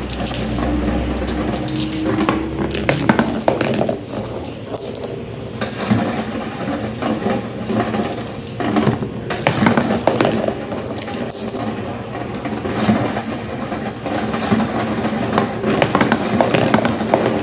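Marbles rolling and clattering down a homemade marble run: a steady rolling rattle, dense with clicks and knocks as the marbles hit the track and each other.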